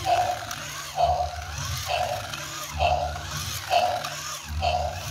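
Battery-powered toy dinosaur running, its small motor humming with a repeating mechanical sound about once a second.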